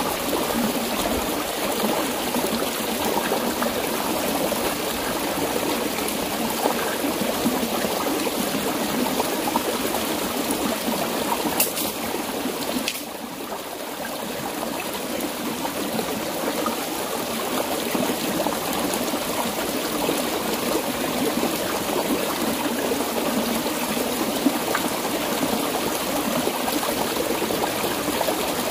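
Shallow rocky stream flowing and trickling steadily, with a brief dip in level about halfway through.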